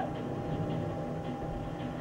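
Boat engine running with a steady low rumble, under a wash of wind and wave noise.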